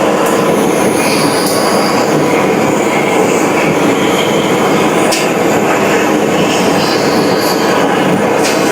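Loud, steady machinery noise with brief high-pitched squeals and a couple of sharp clicks, about five seconds in and near the end.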